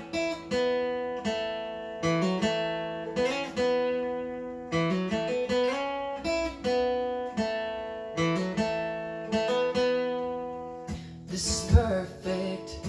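Acoustic guitar playing a slow intro, chords picked or strummed every second or so with the notes ringing on between strokes. Near the end there is a short noisy rustle and a sharp knock.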